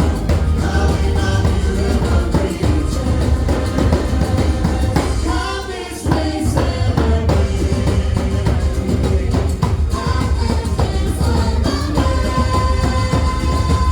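Loud music with singing over a heavy bass line; the backing thins out briefly about five and a half seconds in, leaving a gliding vocal line, before the full music returns.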